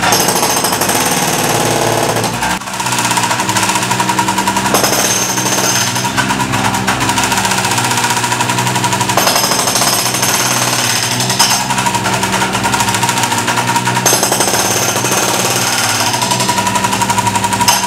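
Hydraulic breaker on a MultiOne 5.3 mini loader hammering rapidly into a tiled floor, with a short break about two and a half seconds in. The loader's engine runs steadily underneath.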